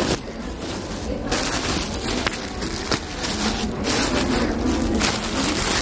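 Rustling and crinkling of a plastic shopping bag and a woven straw handbag being handled as things are packed into the straw bag, with handling noise from a hand close to the phone's microphone.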